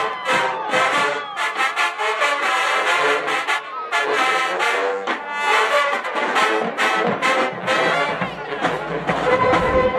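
Marching band brass section of trombones and trumpets playing a loud, fast passage of short punched notes, with low drums joining in during the second half.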